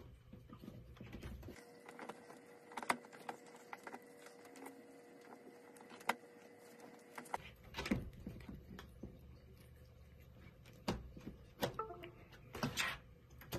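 Faint scattered clicks and taps of a cat chewing and pawing at a small toy, with a faint steady tone for several seconds in the first half.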